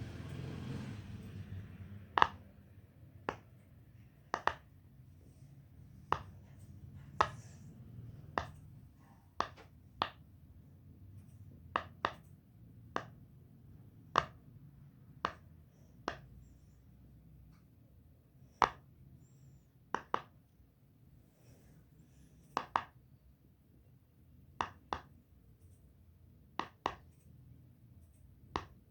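Silicone bubbles of a pop it fidget toy being pressed one at a time, each giving a short sharp pop: about two dozen pops at an uneven pace, roughly one a second, some in quick pairs.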